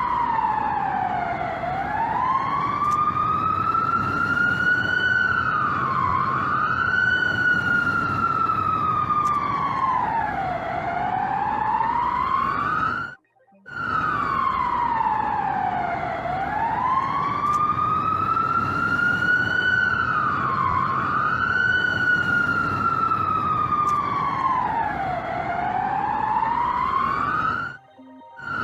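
Emergency alert siren wailing, its pitch sliding slowly down and back up over several seconds, with a short dip at the top of the rise. The wail cuts out briefly about halfway through and restarts with the same pattern, over a low steady hiss.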